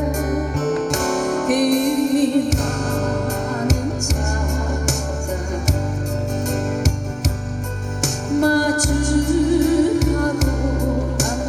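Music: a slow Korean ballad with a band backing track, a held, wavering melody line over bass and regular drum hits.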